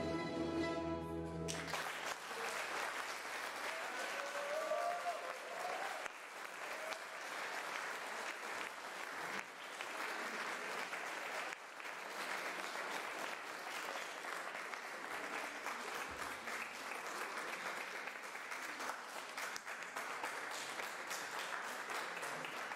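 A string band's music ends on a held chord about a second and a half in, and the audience breaks into sustained applause.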